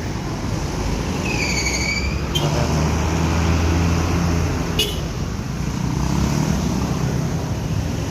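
A bus's engine running as it pulls past, its hum loudest in the middle. A brief high tone sounds about a second and a half in, and two short hisses come at about 2.5 and 5 seconds.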